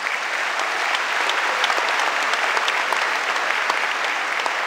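Large audience applauding, many hands clapping densely and steadily; the clapping swells in at the start.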